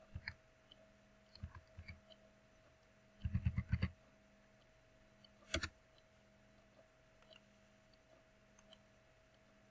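Computer keyboard being typed on: a few single key taps, then a quick run of about seven keystrokes entering a number, followed by a sharper single click and a few faint ones.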